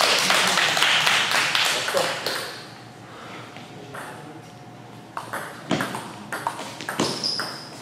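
Table tennis ball clicking back and forth off paddles and table in a rally that starts about five seconds in: a series of sharp, light ticks a few tenths of a second apart.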